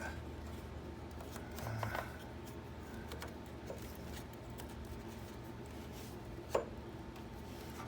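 Faint handling sounds of a metal bracket and hand tools in a car's engine bay, light knocks and rubbing over a steady low background, with one sharper click about six and a half seconds in.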